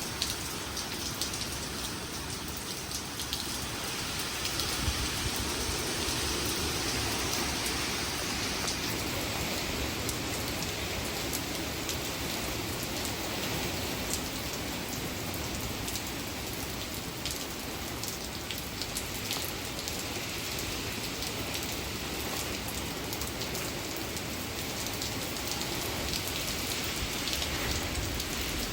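Hurricane rain falling steadily, with a scatter of sharp drop hits.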